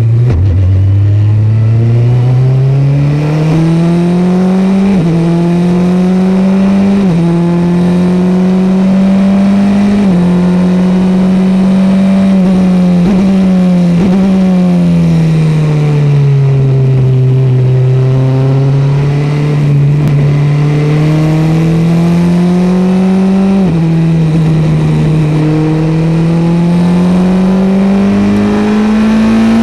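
Onboard sound of a single-seater race car's engine under hard acceleration. Its pitch climbs and drops sharply with each of several upshifts, sags as the car eases off for a bend about halfway through, then climbs again with another upshift.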